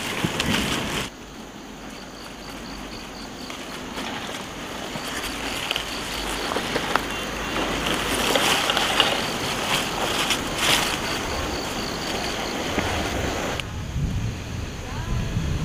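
Napa cabbage leaves rustling and a few sharp snaps as heads are cut and handled in the field, over a steady outdoor hiss. A faint, rapid high chirping repeats at intervals, and near the end a low wind rumble comes in.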